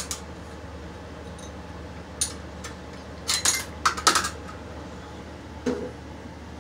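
Small ceramic tiles clinking and tapping against one another and the countertop as a mosaic tile sheet is handled and pressed into place: a few short sharp clinks, the busiest run between about three and four and a half seconds in.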